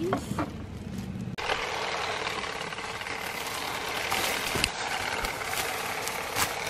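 A plastic hand rake is lifted out of a bucket of rakes. After about a second and a half it is combing through olive branches: a dense run of leaf rustling and small clicks as olives are raked off onto the net.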